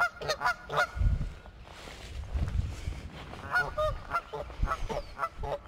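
Geese honking in short repeated calls, a quick series at the start and another volley in the second half. This is the alarm honking of a nesting pair defending their eggs, a warning before they attack.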